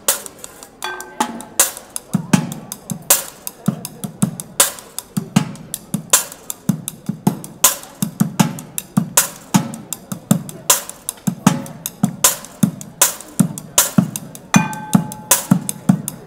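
Street drummer playing a fast, steady rhythm with drumsticks on an improvised kit of a metal sheet, frying pan, steel pail and plastic buckets. Sharp metallic clacks run over a low thud about twice a second. A clear metallic ring sounds about a second in and again near the end.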